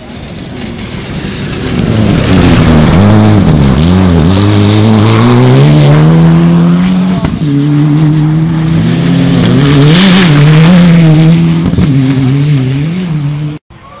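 Rally car engine at full throttle, its pitch climbing and dropping through gear changes and lifts as the car comes on. It gets loud about two seconds in and cuts off abruptly near the end.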